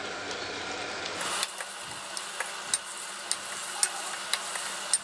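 Steel spoon stirring a thick onion and tomato masala in a stainless steel kadhai, clinking and scraping against the pan about twice a second from about a second in.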